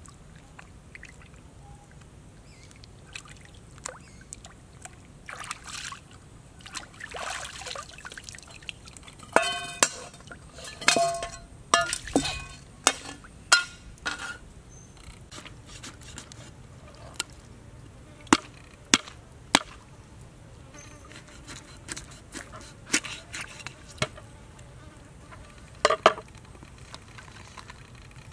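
Water splashing and trickling as a whole plucked raw chicken is dunked and rinsed by hand in open water. Irregular splashes and drips come in bunches, busiest in the middle, with quiet stretches between.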